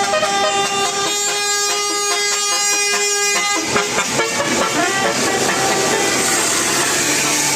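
Indonesian bus telolet horn (multi-tone air horn driven by a Basuri melody module) playing a tune of several notes sounding together and changing pitch. It stops about three and a half seconds in, and a hiss grows towards the end.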